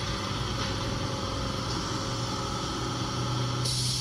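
Rain boot making machines running: a steady mechanical hum with a constant low drone. A high hiss starts suddenly shortly before the end.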